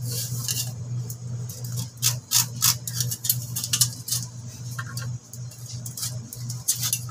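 Pencil scratching short, irregular strokes on a wooden plank while lines are marked against a metal square, over a steady low hum.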